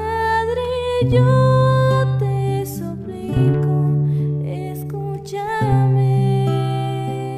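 Music: an instrumental passage near the end of a Spanish-language Christian song, with guitar and a sustained melody line over a steady bass.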